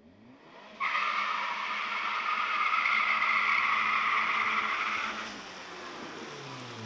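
Saab 900 doing a burnout: the engine revs up, then the spinning front tyres squeal loudly for about four seconds. The squeal stops, and near the end the engine revs fall away.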